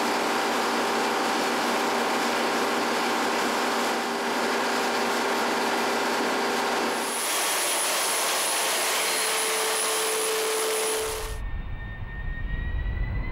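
Boeing X-32B's jet engine running steadily close up, a loud rush with a steady whine in it. About eleven seconds in it changes to a deeper rumble with a slowly rising whine as the jet lifts off into a vertical hover.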